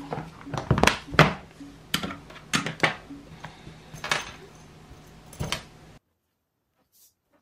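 A tablet in its folio case and a pencil being handled and set down on a desk: a string of sharp knocks and clacks, loudest about a second in, that stops abruptly about six seconds in.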